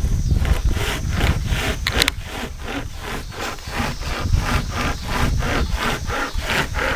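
Homemade pocket chain saw, a cut-down Stihl low-drag chainsaw chain with strap handles, pulled back and forth by hand through a tree limb: the cutters rasp through the wood in quick, even strokes, about four a second.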